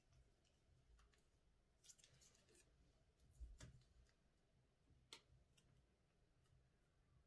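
Faint handling of a plastic piping bag filled with slime, a few soft clicks and crinkles, then a sharp snip of small scissors cutting off the bag's tip about five seconds in.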